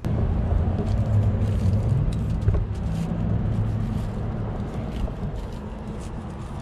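A car engine running close by: a steady low rumble that slowly fades. Light clicks and rustles of paper wrappers and a straw sleeve sit on top of it.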